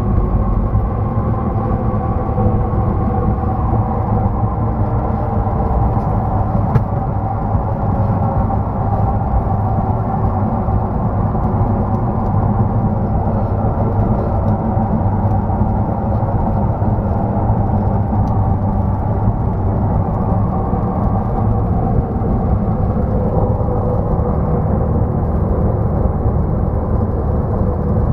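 Single-engine light airplane's piston engine and propeller running, heard inside the cockpit as a steady, even drone while the plane rolls along the runway and onto the taxiway. One brief click about seven seconds in.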